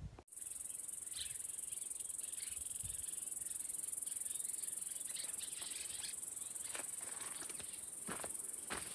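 Insects buzzing in a steady high-pitched drone, with footsteps on a dirt and gravel trail from about halfway in.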